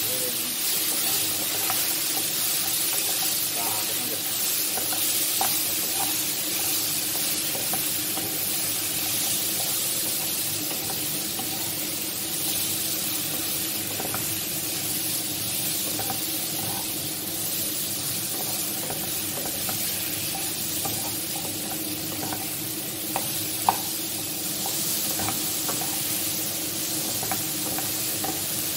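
Long beans, tomato and potato sizzling steadily in oil in a nonstick wok while a wooden spatula stirs and scrapes them, with scattered light clicks of the spatula on the pan and one sharp tap a few seconds before the end.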